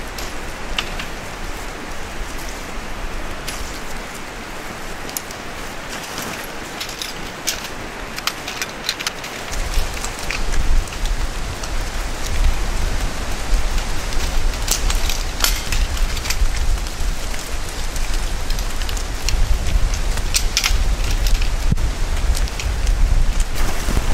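Nylon tent fabric rustling and crinkling as a large tent is collapsed and folded, scattered crackles over a steady rushing noise. A low rumble joins about ten seconds in.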